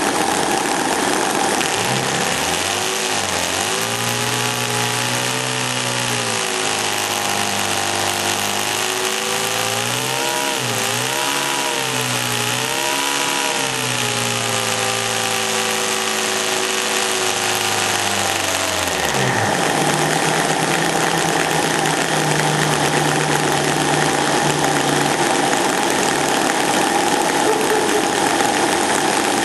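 Technopower seven-cylinder model radial engine running. Its speed climbs over the first few seconds, then rises and falls repeatedly, and about two-thirds of the way through it drops quickly to a lower, steady running speed.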